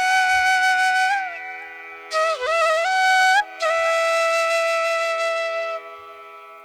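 Flute music over a steady drone: long held notes with slides and bends between them, fading away near the end.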